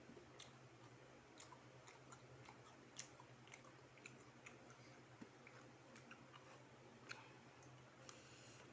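Faint close-up chewing of crispy flour-coated fried chicken: scattered small mouth clicks and light crunches, several a second, over a steady low hum.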